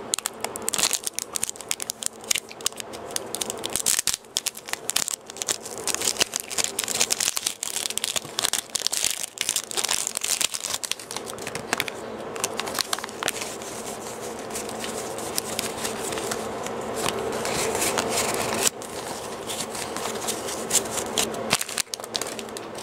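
Foil Pokémon TCG booster pack wrapper crinkling and tearing as it is opened by hand, dense crackles through the first half or so, settling into a steadier rustle later.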